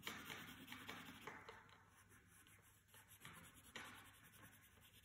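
Faint scratching of a coloured pencil shading on paper in light, irregular strokes.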